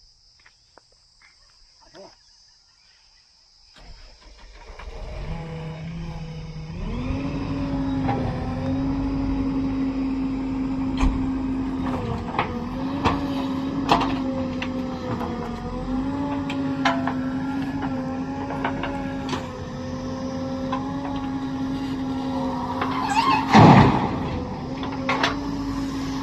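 A heavy diesel machine's engine comes in about four seconds in and climbs to a high, steady running note. The note dips briefly several times as load comes and goes. Scattered knocks sound throughout, and there is one loud metallic clank near the end.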